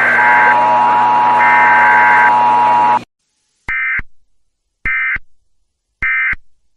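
A noisy, buzzing stretch with a steady tone cuts off sharply about three seconds in. Then come three short bursts of warbling Emergency Alert System (SAME) digital data tones, about a second apart: the end-of-message signal that closes an EAS test.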